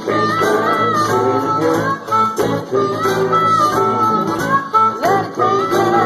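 Live acoustic band music: acoustic guitar with harmonica playing held, bending notes over it, and some singing.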